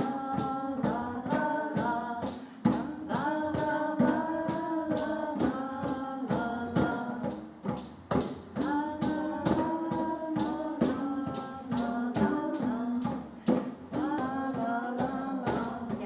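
Voices singing a song together over hand drums such as djembes, beaten in a steady rhythm of about three strokes a second.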